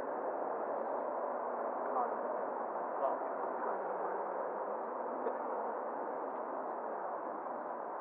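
Steady radio hiss from an air traffic control feed between transmissions, with a few faint fragments of voice in the noise.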